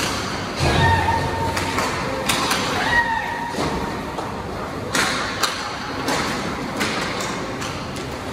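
Ice hockey play in a large echoing rink: a string of sharp knocks and thuds from puck and sticks against the boards, with a couple of short shouted calls.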